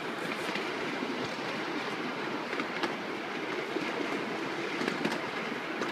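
Ride-on miniature railway train running along the track: a steady rumble of the wheels on the rails, with a few brief sharp clicks.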